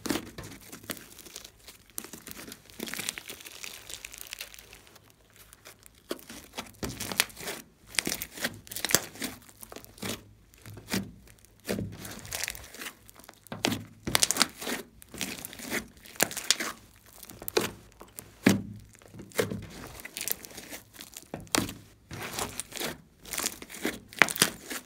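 Large lump of green slime being kneaded and squeezed by hand: sticky squelching with sharp crackling clicks in irregular bursts, sparser for the first few seconds and busier after that.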